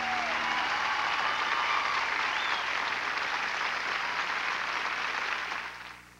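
Studio audience applauding at the end of a song, fading out near the end.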